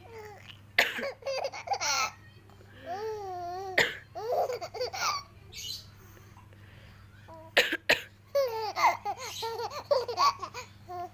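A mother coughs sharply four times: about a second in, near four seconds, and twice in quick succession past seven seconds. After each cough a baby laughs in high-pitched, wavering peals.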